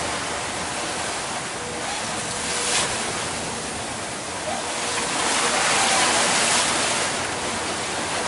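Wind and rough sea water rushing past the hull of a sailing yacht beating to windward, a steady rush that swells louder about five to seven seconds in.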